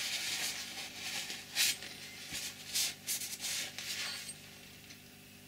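Cloth rubbing and wiping a wet steel axe head dry, in short uneven scuffing strokes. The rubbing stops about four seconds in, leaving only a faint low hum.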